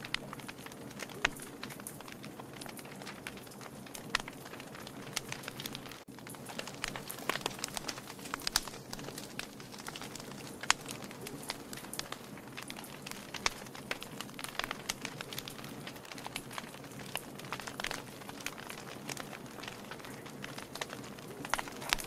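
Wood fire crackling: logs burning on glowing embers, with irregular sharp pops and snaps over a steady low rustle of flame.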